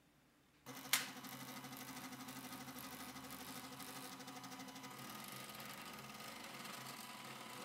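Stepper-driven CD-ROM drive mechanisms of a homemade jello 3D printer start up well under a second in with a sharp click. They then run with a steady whirring buzz and a fine rapid pulsing as the printing needle moves.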